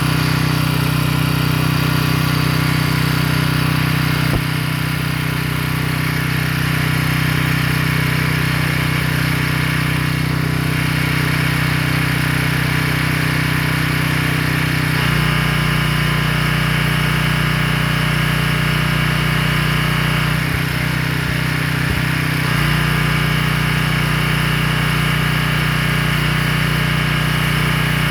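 Small petrol engine of a pressure washer running steadily. Its note changes about halfway through and falters briefly a few seconds later.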